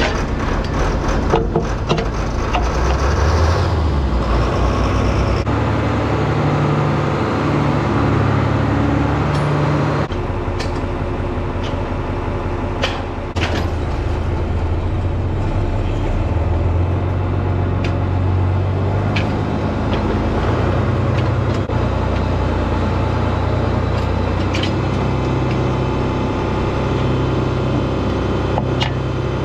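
Diesel farm tractor engine running, its engine speed shifting up and down, with sharp knocks now and then.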